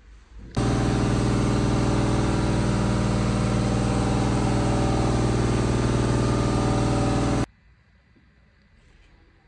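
Loud, steady machine drone like a running engine or motor, one unchanging pitch throughout, starting suddenly about half a second in and cutting off suddenly about two seconds before the end.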